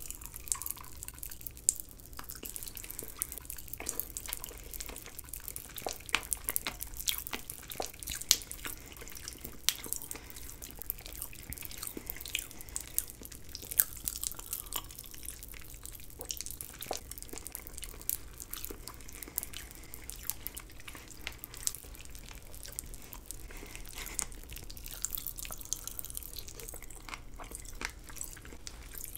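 Close-miked wet mouth sounds of someone sucking, licking and biting a purple jello popsicle: irregular sticky smacks and clicks.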